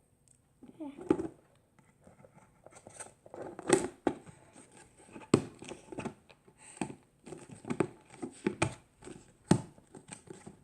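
Slime being worked by hand, giving irregular sticky pops and crackles.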